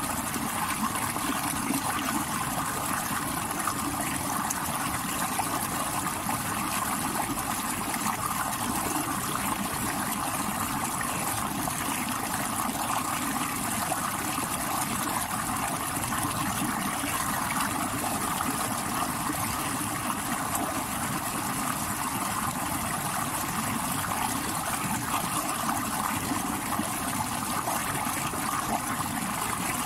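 Stream water rushing over rocks, a steady, unbroken rush.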